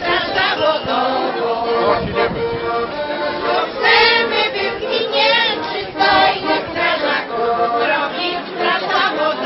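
A group of women singing a song together, with a trumpet playing along.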